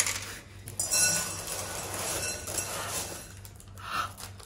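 Dried legumes used as baking weights pouring from parchment paper into a glass bowl: a rattling, clinking rush lasting about two seconds, with the paper crinkling.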